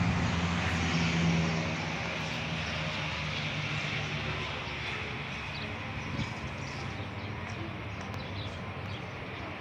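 Steady road-traffic noise, with a passing vehicle's engine hum that fades out about a second and a half in.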